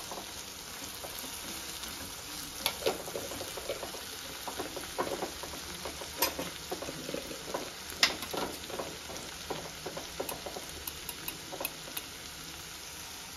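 Tomato-and-spice masala sizzling in oil in a pan on a gas stove while a spoon stirs it, with irregular clicks and scrapes of the spoon over the steady sizzle.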